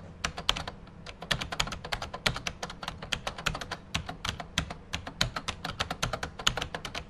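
Split-flap display flaps flipping over: a rapid, irregular clatter of sharp clicks, several a second.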